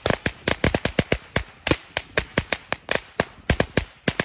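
Small 50-shot firecracker belt going off: sharp bangs in quick, uneven succession, about six a second.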